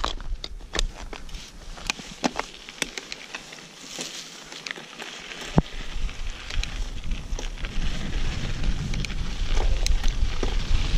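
Yeti SB6c mountain bike being ridden over a dirt trail: tyres crunching on loose ground, with frequent sharp clicks and rattles from the bike. A low wind rumble on the microphone grows louder in the second half as speed builds.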